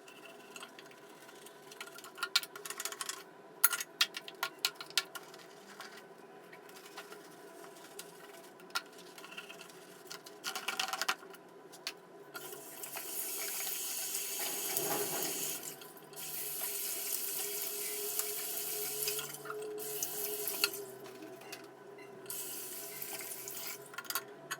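Washroom sink being cleaned: a run of scattered clicks and knocks, then a tap running into the basin in long stretches, broken briefly twice.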